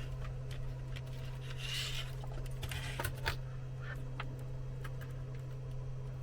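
Small clicks and scrapes of hand-tool work on a circuit board, with a louder scraping rush about two seconds in and a sharp click about three seconds in, over a steady low hum.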